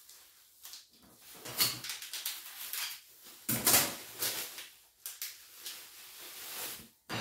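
Handling noises from unpacking and fitting a monitor stand: irregular rustling with light knocks and clatters of the parts, and a sharp click near the end.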